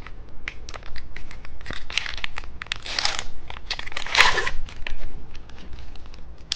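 Plastic candy packaging crinkling and tearing close to the microphone: a run of sharp crackles and rustles, with louder rasping tears about two, three and four seconds in.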